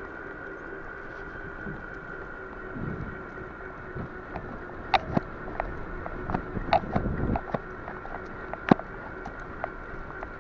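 Bicycle rolling along a sealed path: steady tyre and drivetrain noise with a faint steady whine, and wind on the microphone. About halfway through, a cluster of sharp clicks and rattles comes from the bike, with one louder knock near the end.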